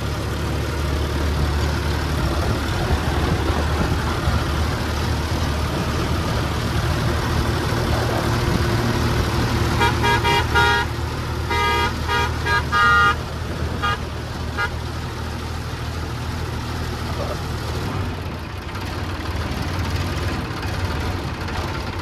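The Mahindra three-cylinder engine of a self-drive lift mixer machine runs steadily under way on the road, with road and wind noise. About ten seconds in, a vehicle horn sounds a quick run of short toots lasting a few seconds.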